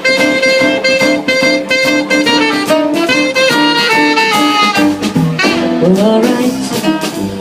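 Swing-jazz band playing an instrumental intro, a saxophone carrying the melody with sliding, bent notes about three-quarters of the way through.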